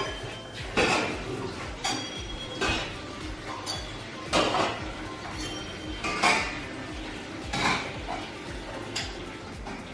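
Brass bowls being set down on brass plates on a table: a series of metallic clinks and clatters about once a second, some ringing briefly.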